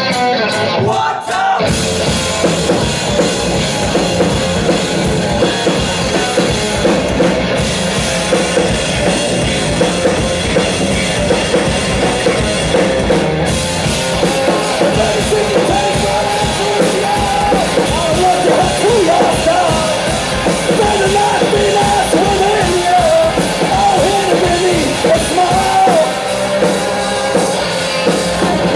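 Live rock from a guitar-and-drums duo played loud in a small club: electric guitar over a full drum kit. After a brief break about a second in, the drums crash in with the guitar and the band plays on hard.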